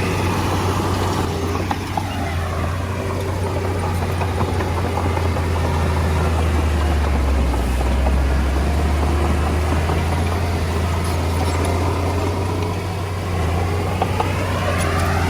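Komatsu D20A bulldozer's diesel engine running steadily with a deep hum, its pitch shifting down and back up near the start and again near the end.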